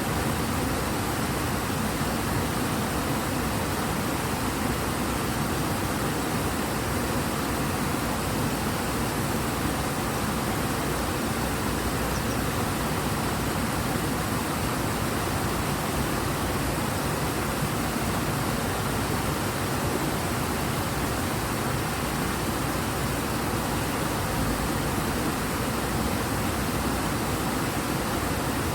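Steady rush of a river running high and fast, an even noise of churning water with no breaks or changes.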